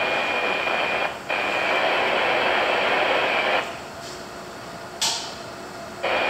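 Two-way radio static: a band-limited hiss with a faint steady whistle in it, keyed on and off. It breaks briefly about a second in, runs two more seconds, drops away, and comes back near the end, with a sharp click about five seconds in.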